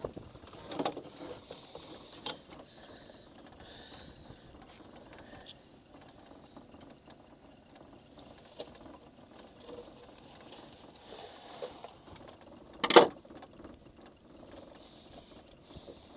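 Handling noise of a landing net and fishing tackle with a zander in it: scattered small clicks and rustles, and one loud knock near the end.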